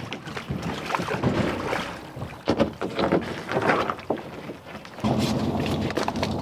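Kayaks being handled at the water's edge: irregular knocks and splashes. About five seconds in, these change abruptly to a steadier rush.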